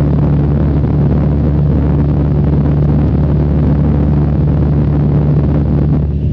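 Cessna 152's four-cylinder Lycoming O-235 engine and propeller droning steadily in flight, heard from inside the cabin.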